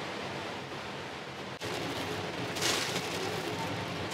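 Wok cooking on a commercial gas range: a steady burner and fan rush, with a loud burst of sizzling hiss about two and a half seconds in.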